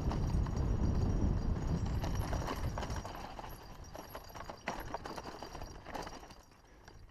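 Haro hardtail mountain bike descending a rough dirt trail: tyres crunching and the bike rattling and knocking over bumps, heard through a helmet-mounted GoPro with low wind rumble. The rumble eases after about three seconds, leaving scattered clicks and knocks.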